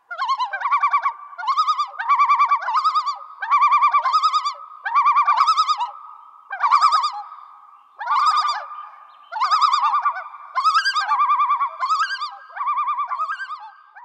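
Animal call sound effect: a rapid series of short, warbling calls with a fast wavering pitch, many of them in pairs.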